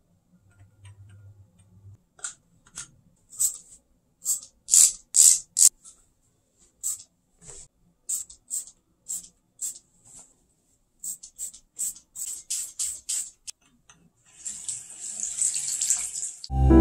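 Trigger spray bottle spritzing cleaner again and again: a long series of short hissing sprays, some in quick runs. Then, near the end, a faucet runs into a bathroom sink for about two seconds.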